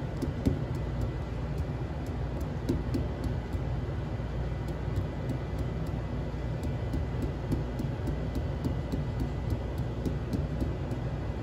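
Steady low rumble of background noise, with a faint thin steady tone above it.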